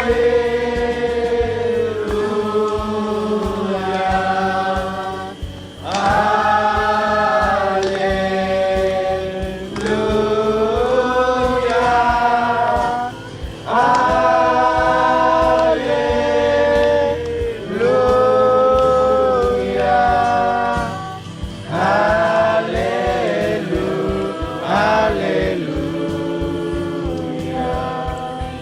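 A group of voices singing a gospel worship song together, in held phrases of about two seconds with short breaths between them.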